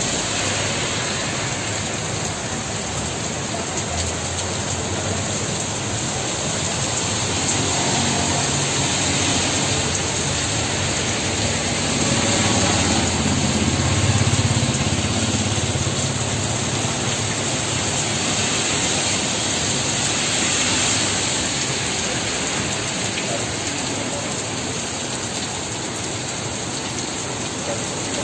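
Heavy rain pouring down and splashing on pavement in a steady hiss. A low rumble swells briefly about halfway through.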